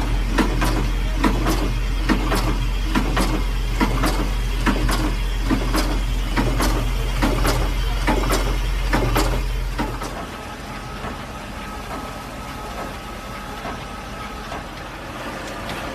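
Car suspension test stand running with a steady low hum, the car knocking about twice a second as it is shaken, until the machine stops about ten seconds in.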